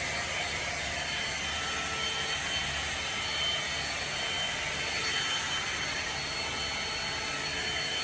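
Hot-air hair styling tool running: a steady rush of blown air with a faint high whine, unchanging in level.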